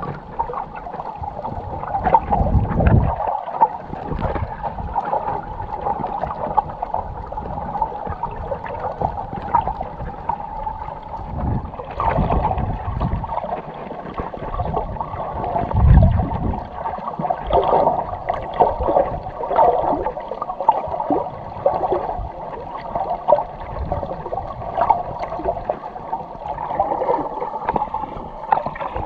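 Muffled underwater noise from a camera held below the surface: water gurgling and sloshing, with irregular low thumps of water movement, loudest about three seconds in and again about sixteen seconds in.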